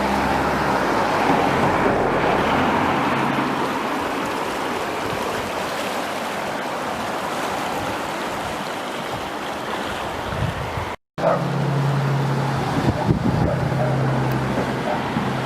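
Flooded river water rushing with a steady noise. After a short break about eleven seconds in, a low steady hum runs under the water sound.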